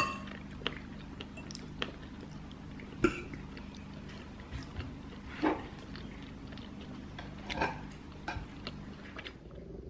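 Someone quietly eating cake with a fork: a clink of the fork on the ceramic plate at the start, then soft chewing and small mouth and cutlery clicks every second or two, over a low steady hum.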